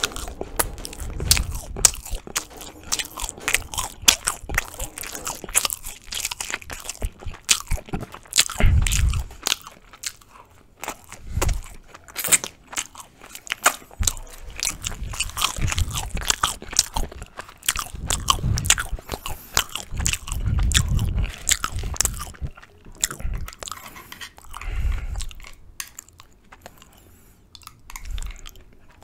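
Close-miked chewing and biting of Turkish Ramazan flatbread spread with ajvar: many small sharp clicks in bouts, with short lulls between mouthfuls.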